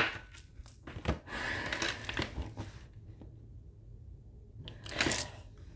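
Tarot cards handled on a tabletop: a sharp tap as the cards come down, a click, then soft sliding and rustling of cards, with another brief rustle about five seconds in.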